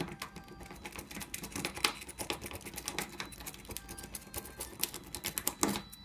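Rapid, irregular metallic clicking as a car jiggler key is worked in and out and wiggled in a Nissan car lock cylinder held in a vise.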